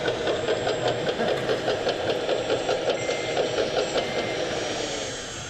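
Model construction machine's sound unit playing a diesel engine running with an even chug about five times a second, with two short reversing beeps in the second half.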